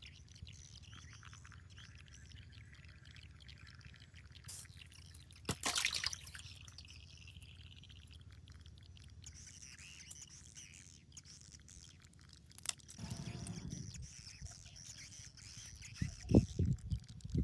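Birds chirping in the background over a faint outdoor hush, broken by short rustles and knocks of handling, with louder irregular rustling and thumps near the end.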